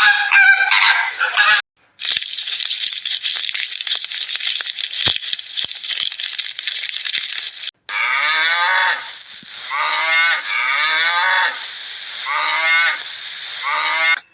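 Animal calls: after a dense hiss with scattered clicks, a series of about six loud calls begins about halfway in, each one sliding down in pitch.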